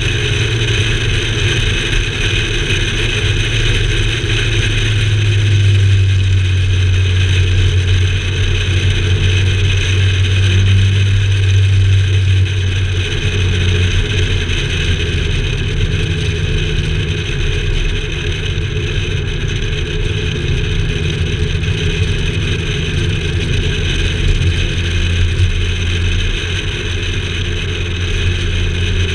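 Car driving steadily at road speed: a steady low engine and tyre drone with road hiss, picked up by a camera mounted low on the outside of the vehicle's body.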